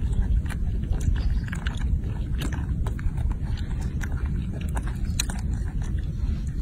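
Baby macaque picking at a bunch of red grapes and biting and chewing them, with many small sharp clicks and smacks. A steady low rumble runs underneath.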